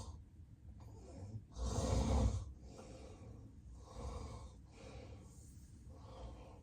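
Heavy snorting breath of a sleeping man with severe sleep apnea, loudest about two seconds in, followed by a run of quieter, quick breaths about one a second.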